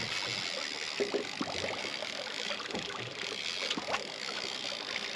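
Water lapping and trickling, with a few faint scattered knocks.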